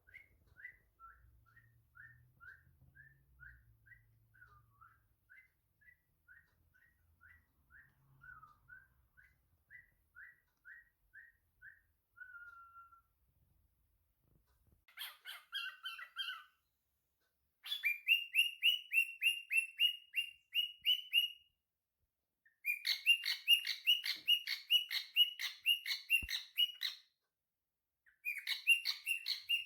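Pet bird calling: a long run of soft, short whistled notes, about two a second. About halfway through it gives way to loud bursts of rapid, shrill chirping, each lasting a few seconds and stopping sharply.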